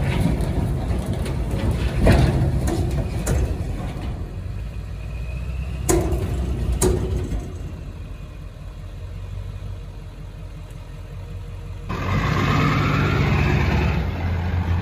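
Truck engine running, with two sharp metallic clanks about six and seven seconds in. About twelve seconds in, after a cut, a pickup truck's engine running as it drives.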